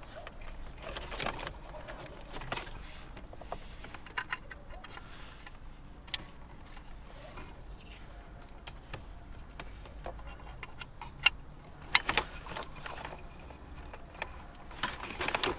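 Plastic wiring connectors being handled and plugged into a metal-cased CarPlay interface module, with cables rustling: scattered small clicks and taps, with two sharper clicks near the end.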